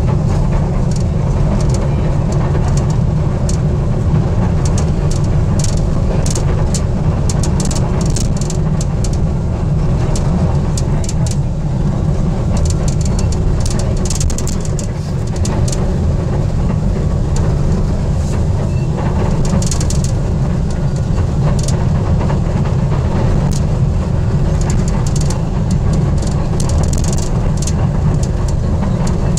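Metro Manila MRT Line 3 train running, heard from inside the car: a loud, steady low rumble with scattered clicks and rattles throughout.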